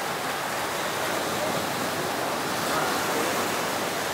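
Surf washing onto a sandy beach, a steady rush of waves with faint voices of a crowd of beachgoers.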